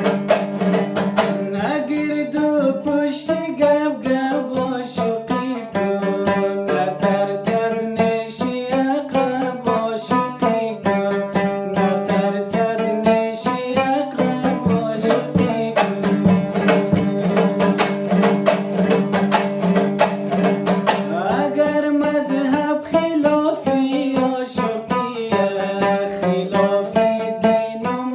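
Dambura, the Hazaragi two-string long-necked lute, strummed in a fast, even rhythm over a steady drone while playing a folk melody.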